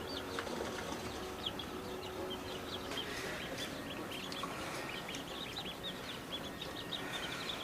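A brooder of baby chicks peeping without pause: many short, high, overlapping peeps, several a second.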